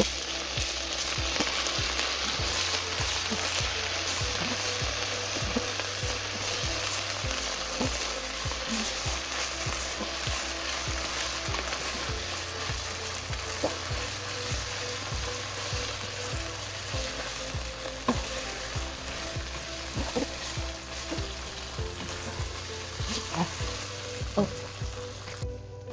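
Fried onions and ginger-garlic paste sizzling in a pan on the pan's leftover heat with the stove switched off, while a spoon stirs them, giving scattered clicks and scrapes against the pan. The sizzle slowly weakens and drops off sharply near the end.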